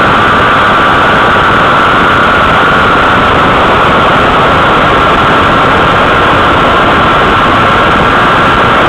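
Sport motorcycle engine held at high revs at top speed, a steady high-pitched whine over a loud, even rush of wind and road noise.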